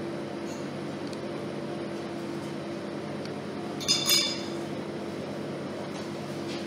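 A metal fork set down against a plate, one clink with a short ring about four seconds in, over a steady low hum.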